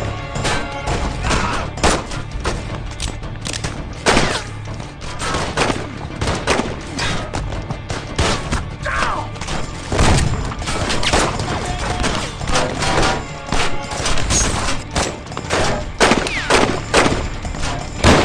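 Movie gunfight: many gunshots from several guns, handguns and long guns, going off irregularly and sometimes overlapping, over a film music score.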